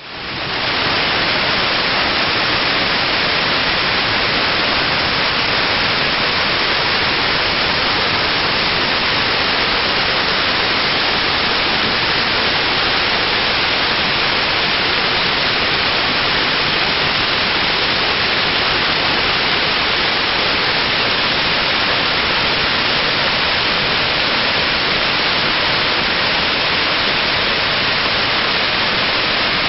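Waterfall: a steady, even rush of falling water, fading in over about the first second.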